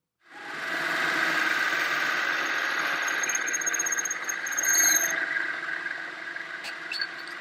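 Metal lathe running while a twist drill bores into a spinning brass part, with a high-pitched squeal from the cut between about three and five seconds in. After that the drill is backed out and the lathe keeps running, a little quieter.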